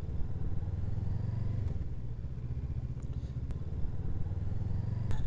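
Motorcycle engine running steadily under way, a low drone with road noise, and a single faint tick a little past halfway.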